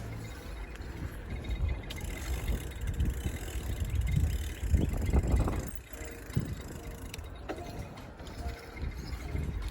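Bicycle being ridden along a trail: wind rumbling on the microphone along with tyre noise, swelling strongest about halfway through, with a few light clicks from the bike.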